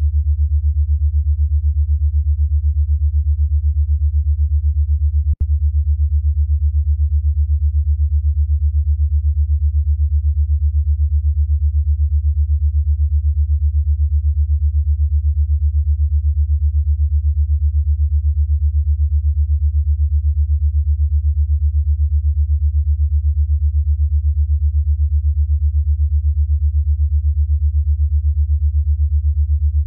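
Steady synthesized low-pitched tone, pulsing evenly and rapidly: an 8 Hz alpha-wave frequency-therapy track. About five seconds in it drops out for an instant with a faint click.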